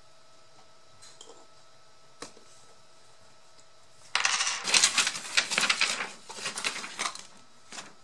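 Small metal pieces clattering and jingling as they are stirred or sifted by hand, in dense bursts starting about halfway through and lasting a few seconds. Before that, only a faint steady hum and a single light tap.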